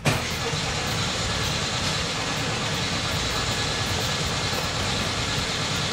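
Air-cooled VW Beetle flat-four engine, set going suddenly with the key and then running on steadily, while the initial ignition timing of its new distributor is still unset.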